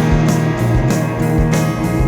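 Psychedelic rock band playing: guitars over bass and a steady drum beat.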